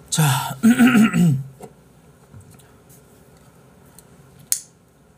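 A man clearing his throat, a rough burst of breath going into a short voiced 'ahem' that wavers in pitch and stops within about a second and a half. A single sharp click follows near the end.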